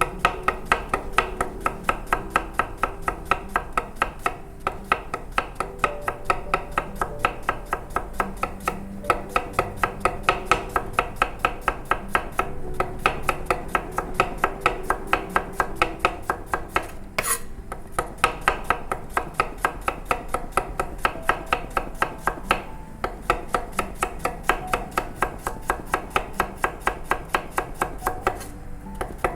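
Kitchen knife slicing a cucumber thinly on a cutting board: a fast, even run of knife strikes on the board, with a few short pauses between runs.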